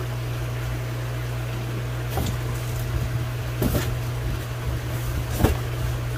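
Cardboard flaps of a large shipping box and its styrofoam lid being handled, giving three short knocks and scrapes, the loudest near the end, over a steady low hum.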